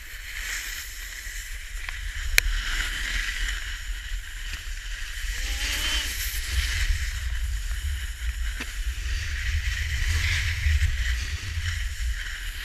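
Steady hiss and scrape of riding downhill over packed snow, swelling and fading, with wind rumbling on the camera's microphone. A single sharp click about two seconds in.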